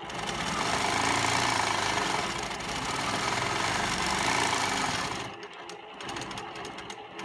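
Longarm quilting machine stitching at speed as it is hand-guided through a free-motion curve, a fast, even run of needle strokes. It stops about five seconds in and starts again at the very end.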